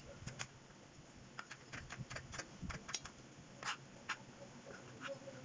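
Chef's knife knocking on a plastic cutting board while slicing carrots into thin strips, in light, irregular taps a few to the second.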